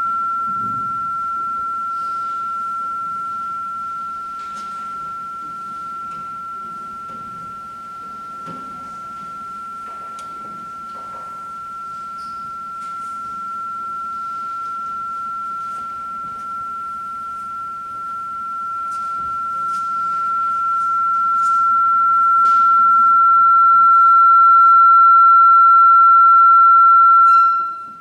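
A single steady high-pitched electronic tone, growing louder over the last few seconds with fainter higher tones joining it, then cut off just before the end. It is a fault in the sound system that interrupted the service.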